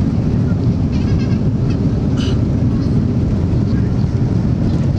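Airliner engines at takeoff power with the rumble of the takeoff roll, heard from inside the passenger cabin: a loud, steady low rumble.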